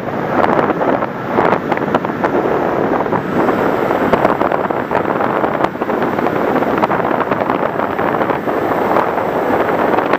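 Loud, steady wind rushing and buffeting over a microphone, with scattered faint clicks.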